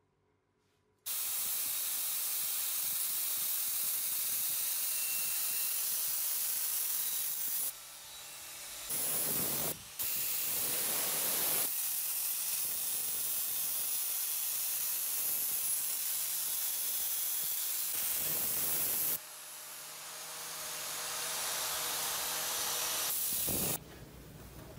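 Steady hissing of a spinning abrasive disc on an angle grinder working the edge of a steel hatchet handle. It starts abruptly about a second in, drops out briefly twice, and swells back up before stopping near the end.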